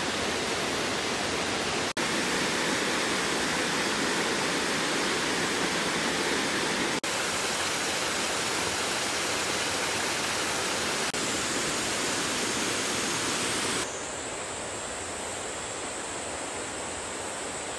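Mountain stream rushing over rocks in small cascades: a steady roar of water that changes abruptly a few times and is a little quieter over the last few seconds.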